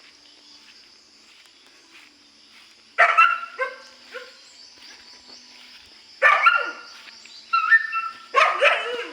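A dog barking in four short bouts, the first starting about three seconds in.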